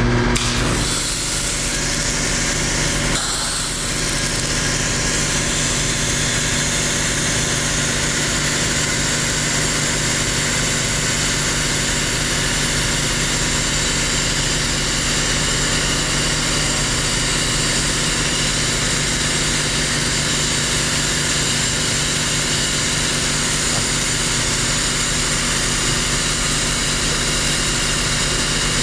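3.5 gallon-a-minute hot-water pressure washer running steadily under load during a soap draw test: a constant machine drone with an even hiss on top. The sound shifts about a second in and again near four seconds, then holds unchanged.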